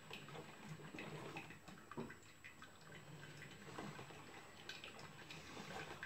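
Drip coffee maker brewing: faint, irregular dripping with small pops and ticks over a low steady hum.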